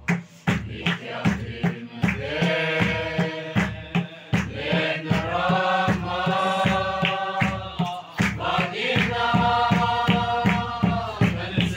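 A group singing a Mizo mourning song together in long held notes, with a large khuang drum beaten in a steady rhythm of about two strokes a second.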